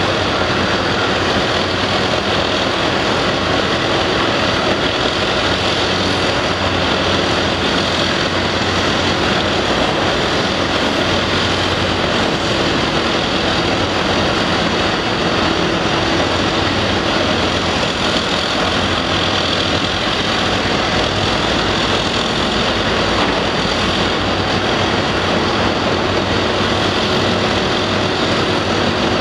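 Diesel engines of heavy hydraulic excavators, including a Cat 345CL, running steadily under working load, heard as a continuous even machinery din with a faint steady hum.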